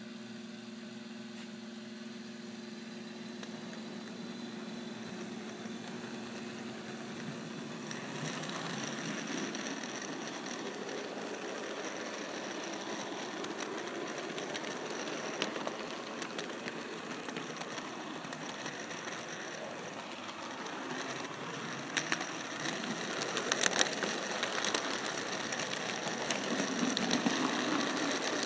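Model railroad train running along the track, with the electric motor and gears humming and the wheels rattling on the rails. It grows louder and rougher about eight seconds in, and a few sharp clicks come near the end.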